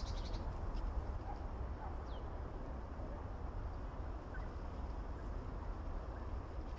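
Woodland ambience: a steady low rumble and hiss with a couple of faint bird calls, one a short falling chirp about two seconds in.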